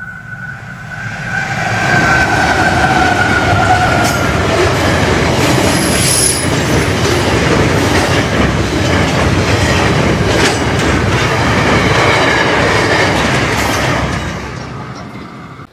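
SCT freight train of louvred vans rolling past: steady wheel-on-rail rumble with clicks over the rail joints, building over the first two seconds and fading near the end. A brief high squeal comes about six seconds in.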